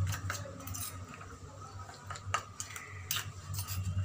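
Metal spoon stirring a thick, oily ground-leaf paste in a small stainless steel bowl, scraping and clinking against the bowl's sides at uneven intervals, with a couple of sharper clinks past the halfway point.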